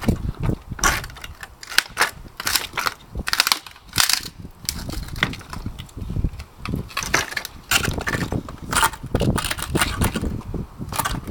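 Wooden pallet boards being levered apart with a steel pallet breaker: a run of irregular sharp cracks and knocks as the wood splits and gives way.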